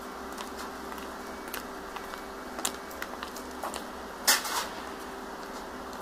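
Handheld metal grater scraping a block of cheese, heard as scattered short scrapes and clicks, the loudest a little past midway, over a steady background hum.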